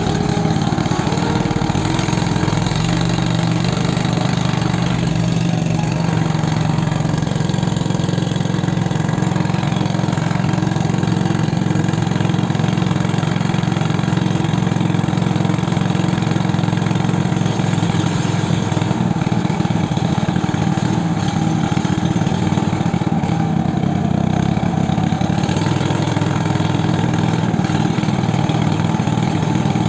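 A small engine running steadily at one speed for the whole stretch, a loud even drone with only slight shifts in pitch.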